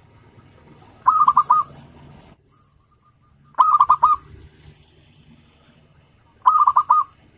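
Zebra dove (perkutut) cooing: three short phrases, each a quick run of about five staccato notes, about two and a half seconds apart.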